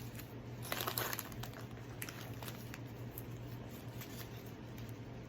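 Plastic packaging crinkling as small packaged items are handled, in irregular clusters of crackles, the busiest about a second in and again around two seconds in, over a steady low hum.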